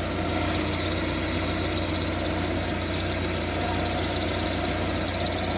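VAZ 2112's 1.6-litre 16-valve engine idling with a steady, rapid high-pitched chirping squeak from the alternator drive belt. The owner found it was the belt itself, not the alternator bearings or idler rollers, which he had already replaced.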